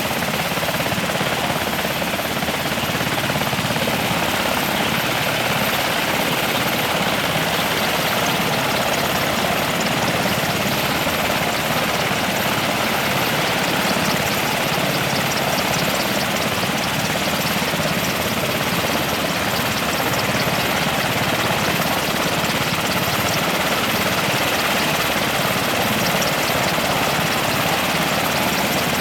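Military helicopter running steadily, its twin turboshaft engines and rotor giving a loud, even noise.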